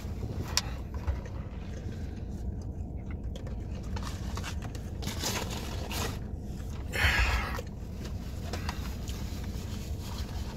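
Eating sounds: chewing and biting into a sandwich, with scrapes and rustles, over a steady low hum. One louder, noisier rustle comes about seven seconds in.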